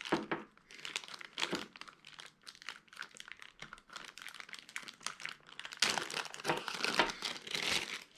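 Packaging crinkling and rustling in irregular handfuls as small camera accessories are unpacked, loudest for the last couple of seconds.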